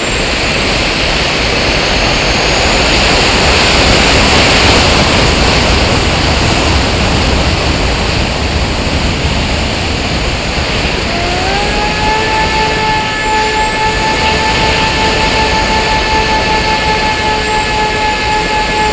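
Wind rushing over the onboard camera of an RC airplane in flight. About halfway through, the plane's motor comes in with a whine that rises briefly in pitch as the throttle opens, then holds steady, dipping right at the end.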